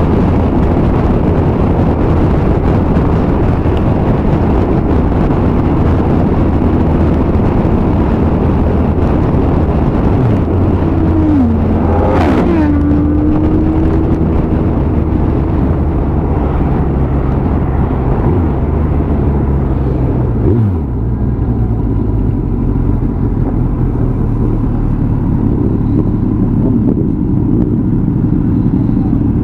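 Motorcycle engine and wind rush heard from the rider's helmet while riding at speed, with a brief change in engine pitch about midway. Past the two-thirds mark the wind noise drops away as the bike slows down.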